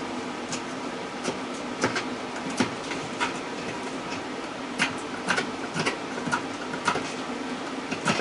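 Irregular sharp clicks and taps of metal being handled while copper windings are worked out of a scrapped electric motor by hand, about fifteen in all, over a steady hum.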